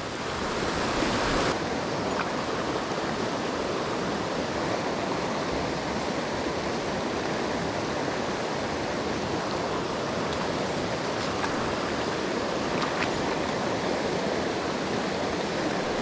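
Steady rush of a mountain stream's water running over rocks, an even hiss with no break, changing slightly in tone about a second and a half in.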